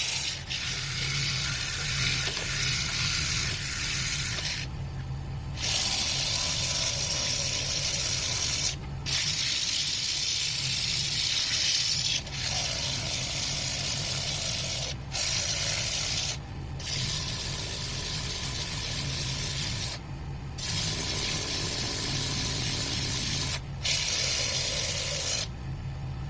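Wood lathe running with a steady hum while sandpaper rubs on a spinning pine bowl. The loud sanding hiss breaks off briefly several times as the paper is lifted and pressed back on.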